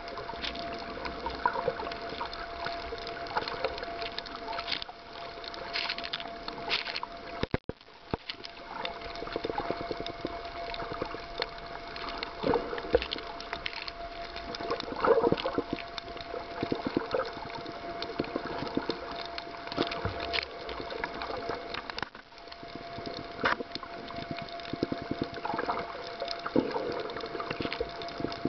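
Underwater sound heard through a submerged camera: a dense, constant crackle with water movement, over a steady faint hum. The sound drops out for an instant about eight seconds in.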